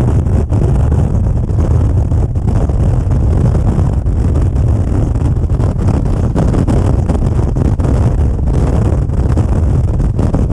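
Heavy wind noise buffeting the microphone of a motorcycle at highway speed, a steady low rumble that drowns out the engine.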